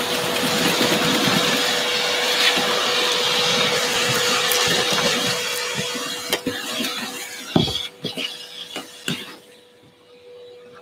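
Vacuum cleaner running, its hose sucking sanding dust off a workbench cutting mat. The motor winds down about seven seconds in, and a couple of knocks follow.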